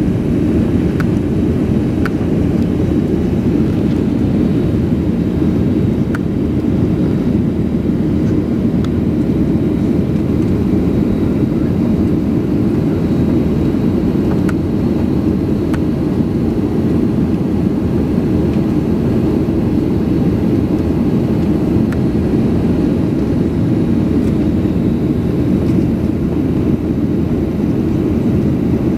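Steady roar of cabin noise inside a Boeing 737-800 climbing after takeoff: its CFM56-7B jet engines and the airflow, heard from a window seat over the wing, with a few faint ticks.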